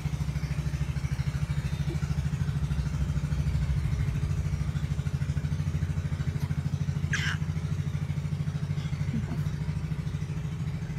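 A motor running steadily with a low, fast, even throb. A short high sound cuts through once about seven seconds in.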